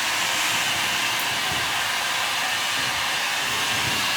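Steady, even rushing hiss with no pitch or rhythm.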